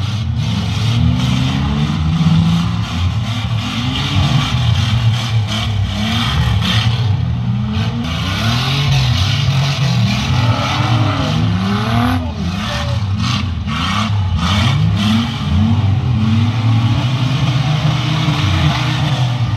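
Several six-cylinder demolition derby car engines revving hard and repeatedly, their pitches rising and falling over one another as the cars spin and push. A few sharp bangs come about halfway through.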